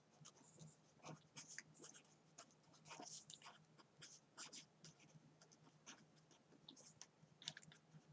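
Faint pen-on-paper writing: irregular short scratches as a word is handwritten, over a faint steady low hum.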